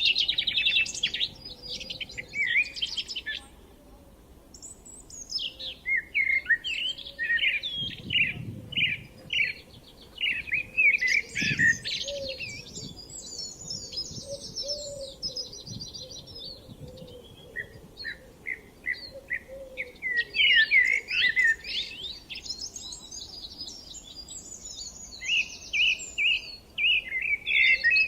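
Several songbirds singing at once, with quick chirps and rapid trills overlapping, and a short lull a few seconds in.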